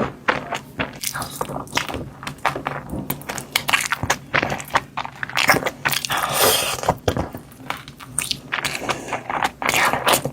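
Close-miked eating sounds: chewing chicken curry and biryani rice, a rapid, irregular run of wet mouth clicks and short crunchy bursts, with a longer noisy stretch about two-thirds of the way through.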